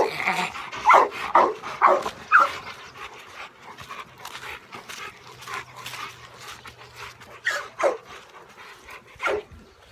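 A protection dog giving short yelping barks that fall in pitch, four in quick succession in the first couple of seconds and a few more near the end.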